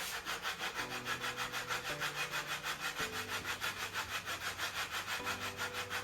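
Hand saw cutting through a wooden piece with quick, short, even back-and-forth strokes, about six a second.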